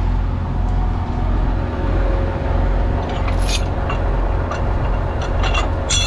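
Large John Deere tractor's diesel engine idling steadily close by, a loud, even low hum. A few light clicks come about midway and near the end.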